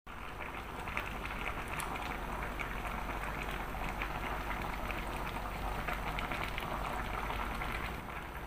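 Mud crabs bubbling and sizzling in butter-garlic sauce in a wok, a steady dense crackle of small pops.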